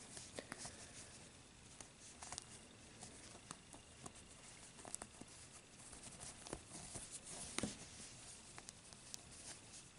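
Faint scattered rustles and small clicks of fingers bending and twisting a chenille pipe cleaner into a ring with spokes, the loudest click a little past seven and a half seconds in.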